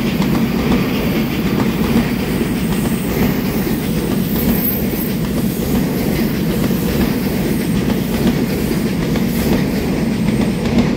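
Twelve-car EMU3000 electric multiple unit running past at close range: a loud, steady noise of steel wheels on the rails, with clatter from the wheels over the track.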